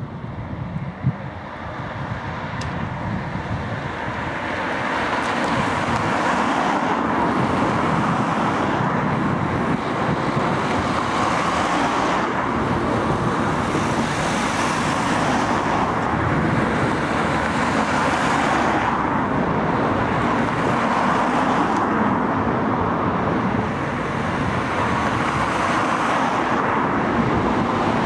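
Steady road traffic noise, an even rush of tyres and engines that builds over the first few seconds, with a single brief knock about a second in.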